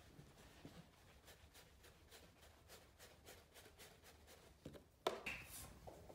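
Faint rubbing of a small dry-erase whiteboard being wiped clean with cloth, in quick back-and-forth strokes about four a second, followed about five seconds in by a short, louder squeak or scrape.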